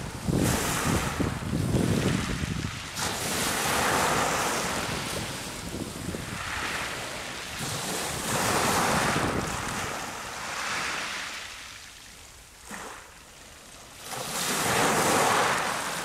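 Small waves breaking and washing up over a shingle beach of rounded pebbles, then draining back. The surges swell and ebb every two to three seconds, deepest and most rumbling in the first few seconds, with a lull before a last surge near the end.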